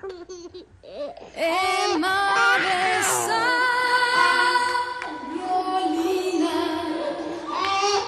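A woman sings the opening song live into a handheld microphone, holding long notes over backing music. The singing comes in loud after a quieter first second or so.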